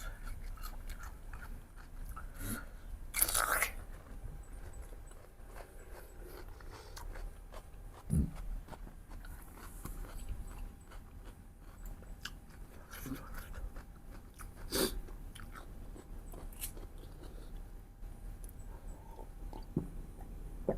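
A person chewing and biting into food from a mutton-rib and rice meal, with wet mouth noises and small clicks, about a third of the way in a louder crunching burst, and a short low thump partway through.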